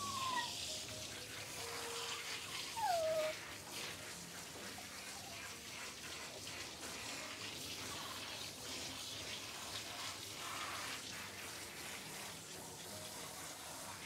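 Water running and splashing as a wet Shih Tzu is rinsed in a grooming tub. About three seconds in comes one short, falling whimper from the dog.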